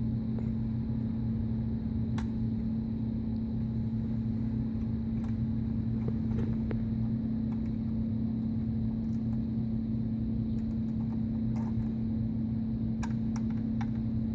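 A steady low hum, with a few faint, short clicks of small parts being handled as the sewing machine's bobbin is taken out and re-seated.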